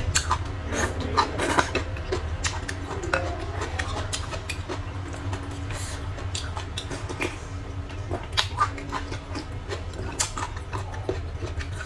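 Close-miked eating sounds: a person chewing and slurping noodles, with many short mouth clicks and utensils tapping against a bowl.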